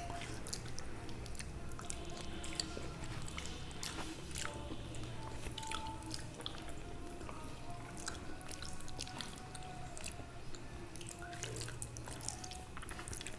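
Close-miked eating: chewing with many short, wet mouth clicks scattered throughout.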